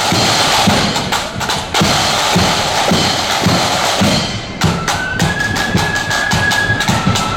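Marching band playing: a steady beat of bass and snare drums with cymbals, and about two-thirds of the way in, high held notes come in over the drumming.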